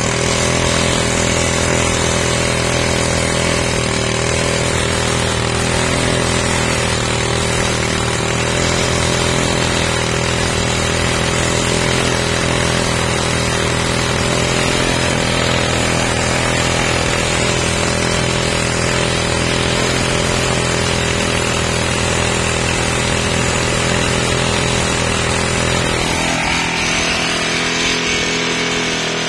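Small engine fitted with a modified GEET reactor running steadily at a constant speed, its exhaust flowing past the gas monitors; near the end its sound shifts slightly.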